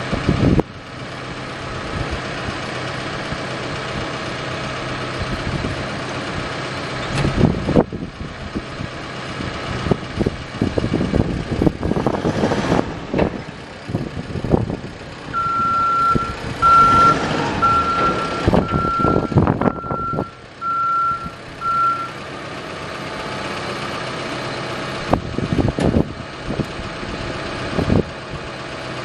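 Caterpillar 415F skip loader's diesel engine running as the machine moves, with uneven knocks and surges. Midway through, its reversing alarm beeps about eight times, roughly once a second, as it backs up.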